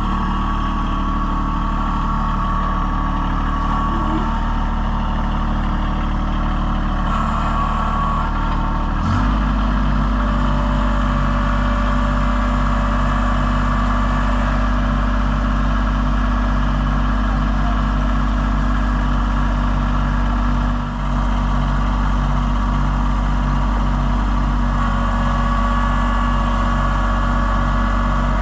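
A vehicle engine running steadily, with its note changing abruptly about nine seconds in and then holding steady.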